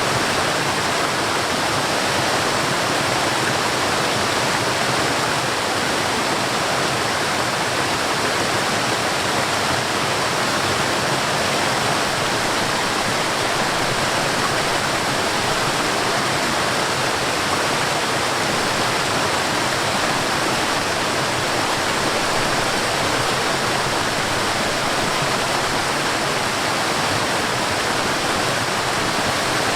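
Mountain stream water rushing over a waterfall, a steady, even rush with no breaks.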